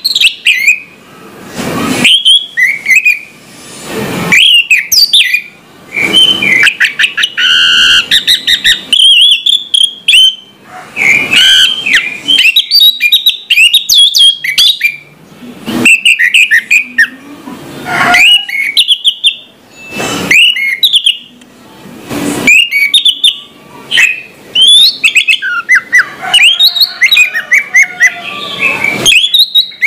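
Orange-headed thrush singing a long, varied song of rapid chirps and whistled notes, in phrases broken by short pauses.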